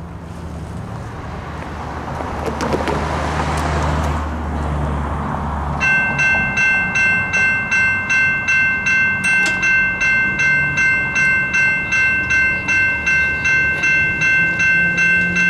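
Railroad crossing warning bell ringing steadily, about two to three strikes a second: the crossing signal has activated for an approaching train. About six seconds of rising rumbling noise come before the bell starts.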